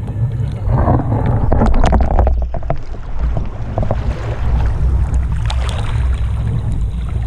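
Water churning and splashing around a wakeboarder as the tow boat pulls him through the water, over the boat engine's low, steady rumble.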